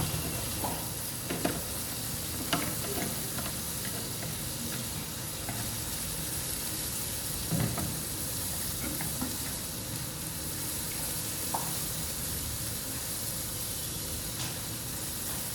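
Chopped garlic sizzling in butter and olive oil in a pan while being stirred, a steady frying hiss with a few light clicks of the utensil against the pan.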